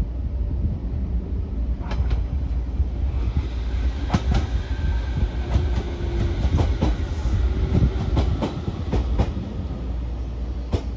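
A JR Kyushu BEC819-series battery-electric train running along the track, heard from inside the car: a steady low rumble with the wheels clacking over rail joints in quick pairs, starting about two seconds in and coming more often after about four seconds.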